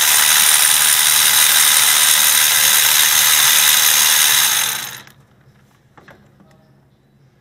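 Cordless electric ratchet running to spin a spark plug socket on an extension, backing a spark plug out of the cylinder head. It runs steadily for about five seconds, then stops.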